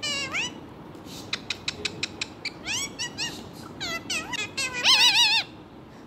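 Ringneck parakeet calling: short rising squawks, a quick run of clicks, more rising calls, then a loud wavering call near the end.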